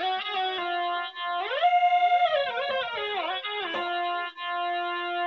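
littleBits Korg analog synthesizer playing a single-note melody, its pitch gliding smoothly up and down from note to note with portamento, then settling on a held lower note.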